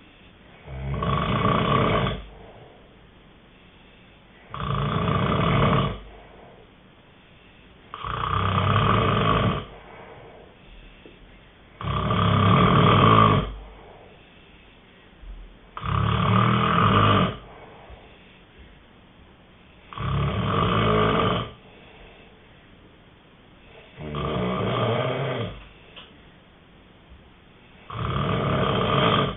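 A sleeper snoring steadily: eight snores, each lasting over a second, coming about every four seconds, with quieter breathing between them.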